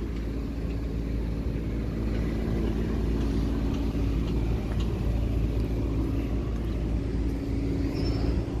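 Peterbilt semi truck's diesel engine idling steadily, a low, even rumble with a constant hum above it.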